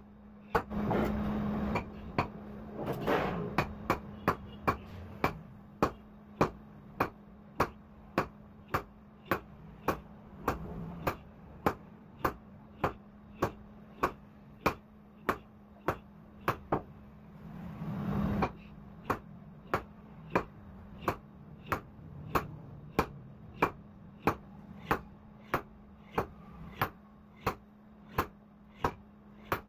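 Sledgehammer blows on a red-hot steel car axle on an anvil block: a steady run of sharp strikes, about two a second, starting a couple of seconds in, with a short pause about two-thirds of the way through. A steady low hum runs underneath.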